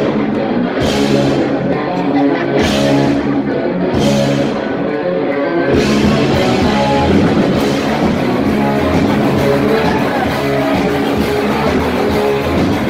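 Live heavy rock band playing loud, electric guitars over a drum kit, heard from the crowd. Cymbal crashes land about every second and a half in the first half, then the band goes into a denser, fuller passage about halfway through.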